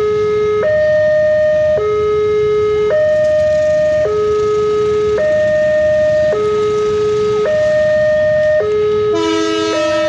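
Electronic level-crossing warning siren sounding a two-tone hi-lo signal, switching between a lower and a higher tone about once a second, over a low rumble of traffic. About nine seconds in, a horn joins briefly.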